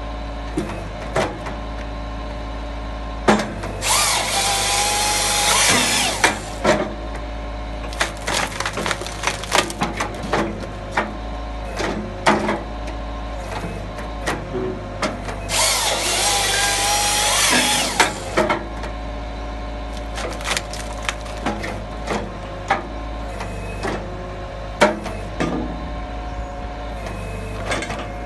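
HWP-140 firewood processor head working on a Hitachi excavator, its engine running steadily underneath. Twice, a few seconds in and about halfway, the head's hydraulic saw cuts through a log for about two and a half seconds; in between come many sharp knocks and cracks of wood being split and falling.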